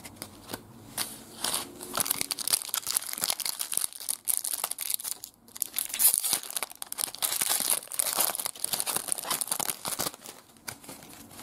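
Foil wrapper of a trading card pack crinkling and tearing as it is ripped open by hand: a fast, irregular run of crackles with a short pause midway.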